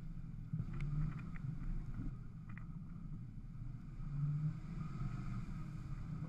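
Off-road 4x4's engine running at low revs as the vehicle crawls over a muddy track, the drone swelling briefly about four seconds in. A few short sharp knocks come about one and two and a half seconds in.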